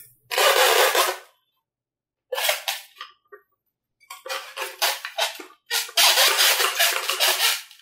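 Scratchy rubbing and scraping of a hand working against a painted foam-board airframe, in four separate stretches of a second or more each, with silent gaps between them.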